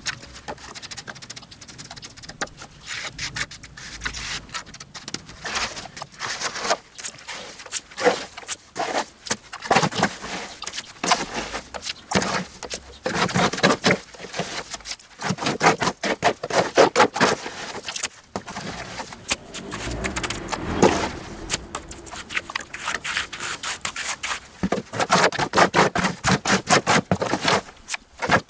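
Hand trowel scraping through wet concrete screed, scooping it from a plastic mortar tub and spreading and smoothing it over a trench: a long run of irregular scraping strokes.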